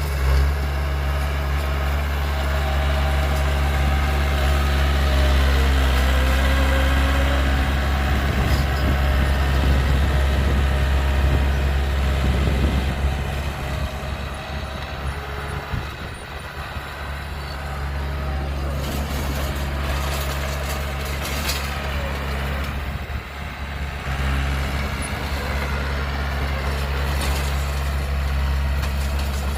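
Diesel engine of heavy earthmoving or haulage equipment running steadily with a low hum, which eases off somewhat around the middle; a few short clanks sound about two-thirds of the way through.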